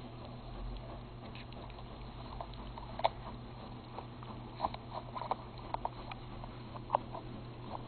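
Papillon puppy gnawing and pawing at a large dog tennis ball: irregular small clicks and scrapes of teeth and claws on the felt, a few sharper ones about halfway through.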